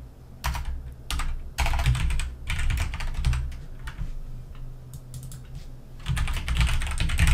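Typing on a computer keyboard in quick bursts of keystrokes. There is a quieter pause of a second or two in the middle, then a last burst near the end.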